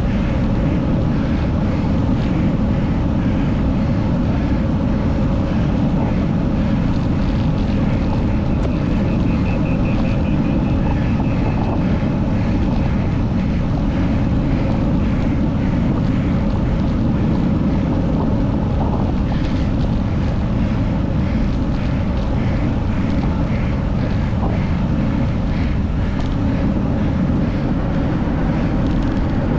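A cyclist's heavy, labored breathing after a hard sprint finish, heard as faint repeated breaths over a steady, loud, low rumble.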